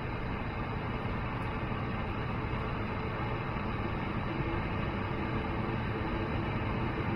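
Steady jet engine and cabin noise inside an Airbus A220-100, its Pratt & Whitney PW1500G geared turbofans running with a low rumble and a faint steady whine on top.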